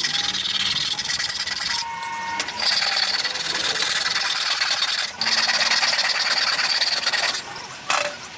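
Power tool grinding steadily, breaking off briefly about two seconds in, again just after five seconds, and near the end.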